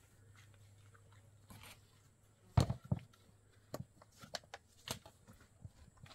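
Plastic crate and laundry basket being handled on a plastic washbasin: two loud knocks close together about two and a half seconds in, then scattered lighter clicks and rustles.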